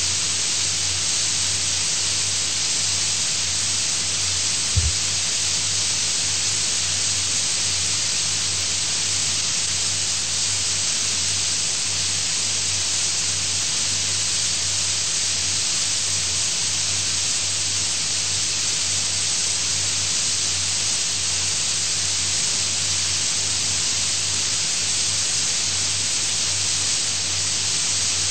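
Steady hiss with a low hum beneath it, the background noise of an audio recording with no speech on it; a single short thump about five seconds in.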